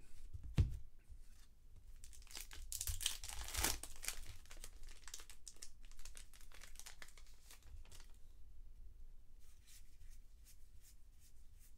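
Baseball trading cards flipped one by one through the hands, card sliding and flicking against card in quick rustles, with a dull thump about half a second in. The rustling is densest between about two and four seconds in and thins to light flicks near the end.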